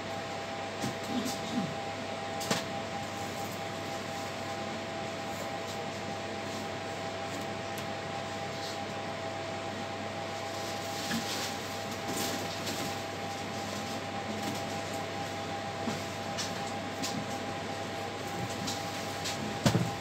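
Cabin noise inside an EN81 electric multiple unit on the move: a steady hum and hiss with a constant high whine. Scattered clicks and knocks break it, the loudest a sharp knock near the end.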